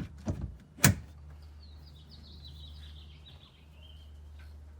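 A single sharp thump about a second in, then a bird singing a quick run of high chirping notes that falls slightly in pitch, over a low steady hum.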